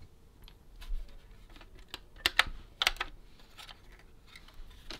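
Light clicks and taps of plastic and metal parts being handled while a 1971 Nintendo Ultra Scope periscope toy is taken apart, with two sharper clicks about halfway through.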